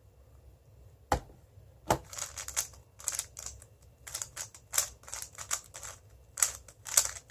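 Moyu WeiLong GTS2M 3x3 speedcube being turned fast, its plastic layers clacking in quick, irregular bursts. Two sharp knocks come about a second and two seconds in, before the turning starts.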